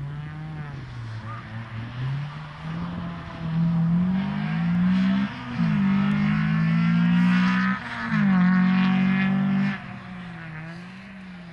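Honda Civic VTi rally car engine accelerating hard through the gears. The pitch wavers at lower revs at first, then climbs, drops sharply at a gearshift about five seconds in, climbs again, shifts again near eight seconds, and revs up once more before backing off near the end.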